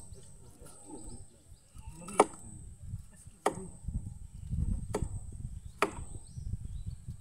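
A knife chopping into a barramundi on the wooden floor of a dugout canoe: four sharp knocks, a second or so apart.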